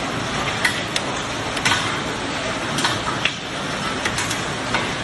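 Heavy rain and wind in a hailstorm: a loud, steady hiss broken by sharp, irregular clicks of hailstones striking hard surfaces, about seven in five seconds.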